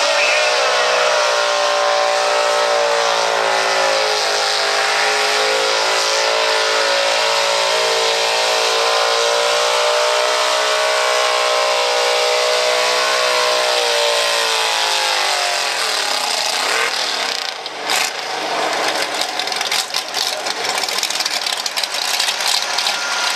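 Gas-engined 4x4 pickup truck pulling a weight sled with its engine held at high revs. About fifteen seconds in the revs fall away as the truck comes to a stop, and the engine then runs low and rough.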